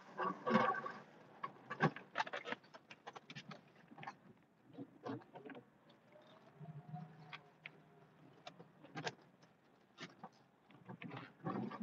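Western WideOut XL snowplow blade pushing and scraping snow, heard from inside the truck's cab as irregular knocks, clicks and scraping.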